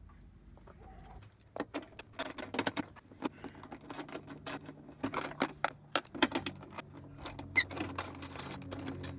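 Irregular sharp metallic clicks and clinks of a socket wrench and extension working the bolts on a scooter's floorboard. They start about a second and a half in and come in quick uneven runs.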